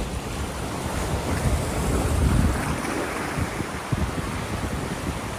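Sea surf washing against shore rocks, with wind buffeting the microphone in low rumbles that are strongest about two seconds in.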